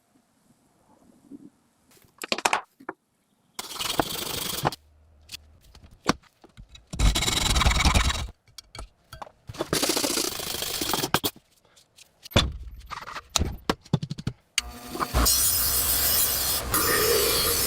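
Rusty steel knife blade being ground and scraped, in several separate loud stretches a second or two long with sharp clicks and short gaps between them.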